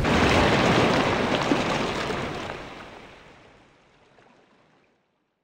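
Rushing water and wind noise aboard a Volvo Ocean 65 racing yacht under way at sea, fading out to silence over about four seconds.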